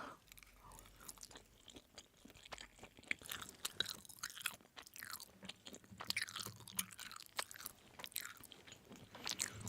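A person chewing a mouthful of dry mixed noodles close to the microphone, with irregular wet mouth clicks and smacks.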